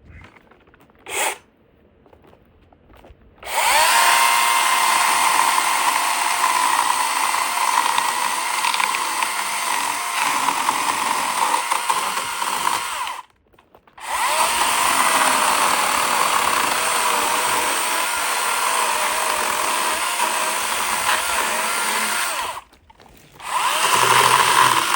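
DeWalt DCMCS574 54V FlexVolt brushless cordless chainsaw running in three bursts with a steady high electric whine. The first two bursts last about nine seconds each and the last is short, with a brief stop between each. A short sharp knock sounds about a second in.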